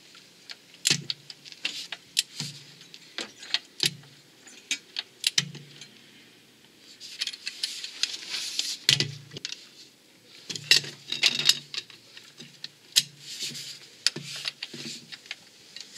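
Ratchet wrench and socket clicking and clinking in repeated short strokes while the crankshaft pulley bolt is loosened. The clicks come about once a second at first, with denser runs of ratcheting around the middle and again a little later.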